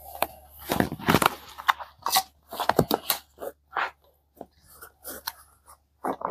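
Hands handling the plastic bowl and fittings of a compressed-air filter regulator lubricator, making irregular clicks, knocks and scrapes, loudest about a second in and again near three seconds.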